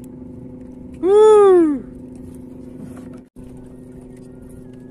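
Steady low hum of a small boat's engine idling, and about a second in a man's loud, drawn-out whoop that rises then falls in pitch. The sound cuts out briefly a little after three seconds.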